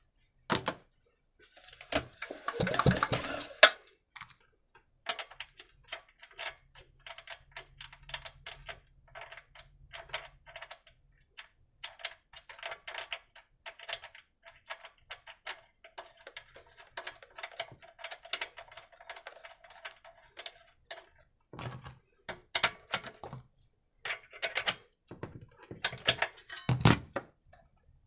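Scattered clicks, taps and light rattles of hand tools and metal parts being handled on a small petrol generator, with a short rustling burst about two seconds in and a few louder clatters near the end.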